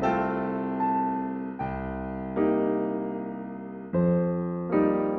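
Calm background piano music: chords struck about once a second, each left to ring and fade.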